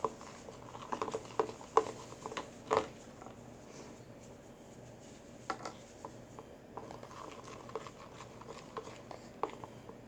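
Spoon stirring glue, shaving cream and borax slime in a bowl: irregular clicks and taps of the spoon against the bowl, busiest in the first few seconds and sparser after.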